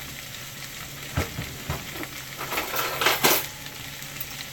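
Glass clip-top jar being handled and its wire-bail lid unclasped: two light knocks, then a louder clatter of glass and metal about three seconds in.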